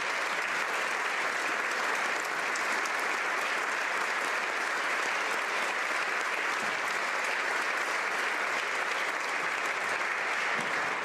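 Large crowd of legislators applauding steadily, many hands clapping at once in a continuous wash.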